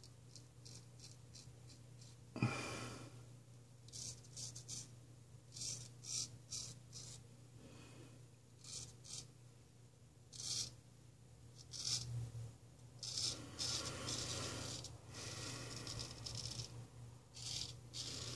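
Ralf Aust 5/8 round-point straight razor scraping through lathered beard stubble in short, faint strokes, with one louder knock about two seconds in.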